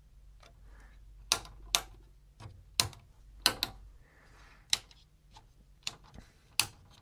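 Front-panel controls of a Pioneer SX-82 stereo tube receiver worked by hand: about ten sharp, irregularly spaced mechanical clicks from its small toggle switches and control knobs being flipped and turned.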